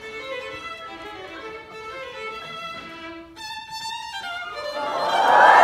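Solo violin playing a run of short separate notes, with one bright high note about three and a half seconds in. Near the end, a much louder, noisier swell of sound comes in over it.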